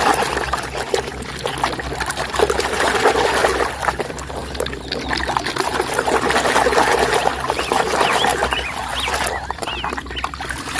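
Water running and splashing over a muddy toy vehicle as it is washed, with small clicks and knocks of the toy being handled.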